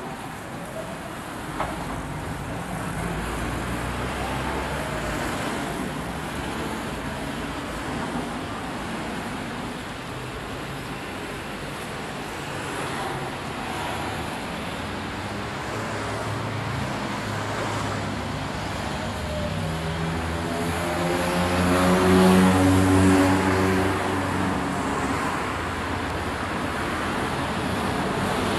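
Road traffic: cars passing steadily, with one vehicle's engine passing close and loudest about three-quarters of the way through.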